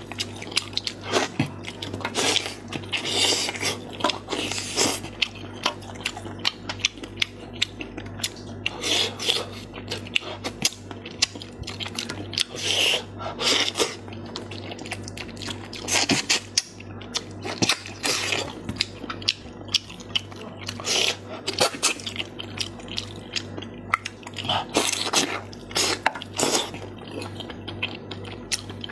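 Close-up chewing and crunching of stir-fried chicken heads, with irregular bites and crunches throughout. A steady low hum runs underneath.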